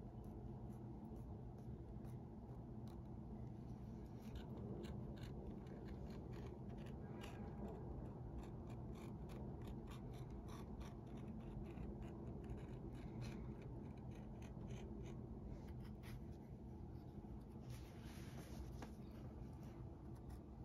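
Knife paring the edge of a leather insole: a run of short, quiet, irregular cutting and scraping strokes, with a longer scraping stretch near the end.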